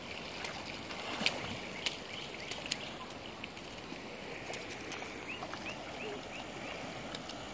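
Steady wash of flowing creek water with a few sharp clicks in the first few seconds. Near the end comes a run of about six short high chirps, roughly three a second.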